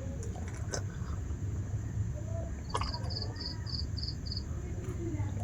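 Quiet eating sounds, scattered small clicks and smacks of food being handled and chewed, over a steady low hum and a high insect drone. About halfway through comes a short run of six high chirps, about three a second.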